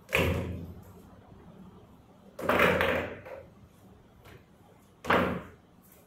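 Pool balls knocking and clacking as they are handled at the table's pockets: three separate knocks, one at the start, a longer clatter of about a second near the middle, and a short one about five seconds in.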